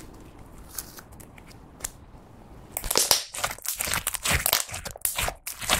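Clear slime mixed with pink glitter glue being stretched and squeezed by hand. It is quiet with a few soft clicks at first, then from about three seconds in comes a dense run of sticky crackles and pops as the slime is squished.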